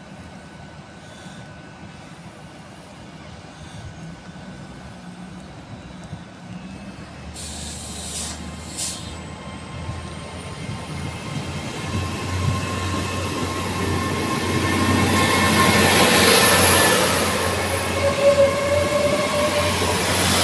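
GWR Class 802 bi-mode train pulling away from the platform on its underfloor diesel engines. A low rumble builds and grows steadily louder as the train gathers speed, with a high thin whine that climbs in pitch. Two brief sharp sounds come as it starts to move.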